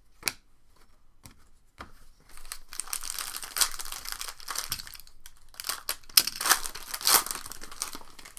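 Crinkling and tearing of a trading-card pack's plastic foil wrapper being ripped open and handled, with a sharp click just after the start and the loudest crackles a little over halfway through.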